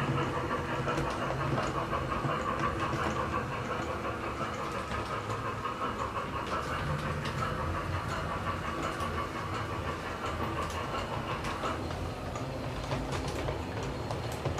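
LGB garden-scale model steam locomotive running, its ZIMO sound decoder playing steam-locomotive driving sound (exhaust and hiss) through the on-board loudspeaker, with scattered light clicks.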